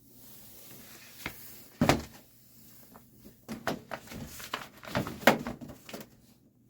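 A series of knocks and clicks from hands working at the open access panel of an electric water heater. The loudest knock comes about two seconds in, with a busier cluster of knocks from about three and a half to six seconds.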